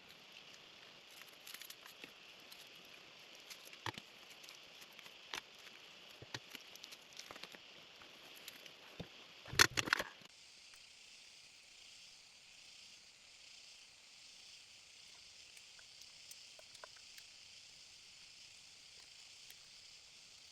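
Outdoor forest background: a steady high hiss, with scattered light clicks and crackles over the first half and a short burst of louder knocks about ten seconds in. After that only the steady high hiss remains.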